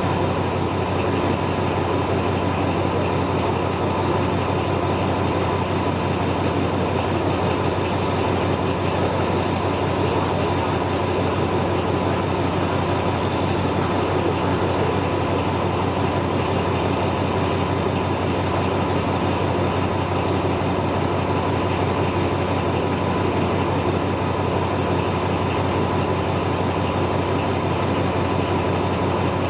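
Alsthom diesel-electric locomotive running steadily: a constant low engine hum with a thin steady whine above it.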